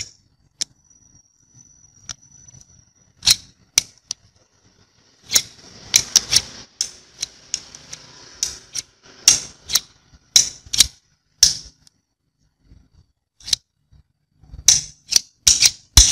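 A steel screwdriver shaft clicking and clacking against a ferrite ring magnet, snapping onto it under the magnet's strong pull. There is a stretch of scraping as the shaft slides along the magnet partway through, and a quick run of clicks near the end.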